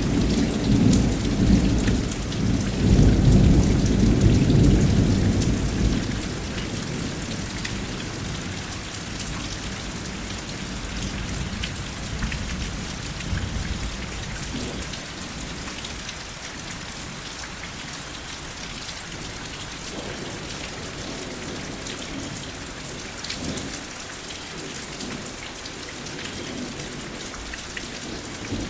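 Steady rain falling, with rolling thunder rumbling low in the first few seconds and dying away, leaving the rain alone.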